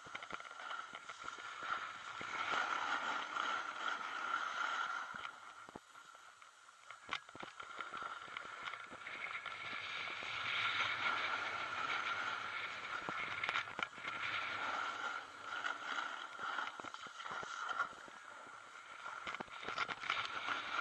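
Snowboard edges scraping and hissing over packed snow while carving down a groomed slope, swelling and fading with each turn, with a few sharp clicks.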